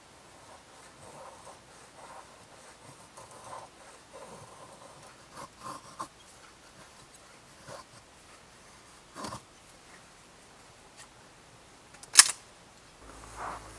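A knife blade shaving thin curls off a wooden stick to make a feather stick: a run of short scraping strokes, with a few knocks of wood. A single sharp click about twelve seconds in is the loudest sound.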